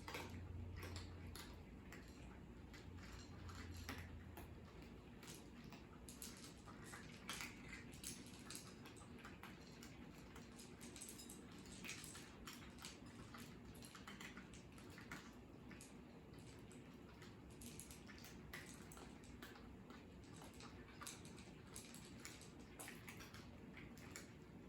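Cats eating: faint, irregular clicks and smacks of chewing and licking at their food.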